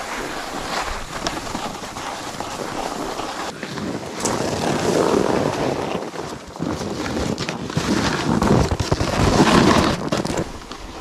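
Wind buffeting the microphone and skis sliding over snow during a downhill run: a rushing noise that swells and dips, with a few short scrapes.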